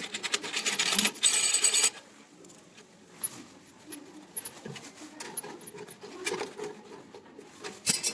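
Metal parts clinking and rattling as they are handled, with a short burst of rapid rattling about a second in, then scattered light clicks and knocks.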